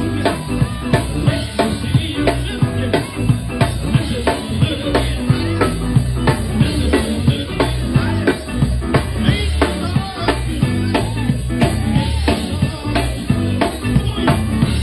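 Live soul band playing: drum kit keeping a steady beat of about two hits a second over bass and keyboards.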